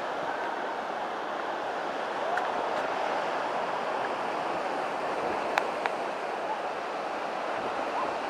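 Surf breaking steadily on a sandy beach, an even rushing wash, with two light clicks a little past halfway.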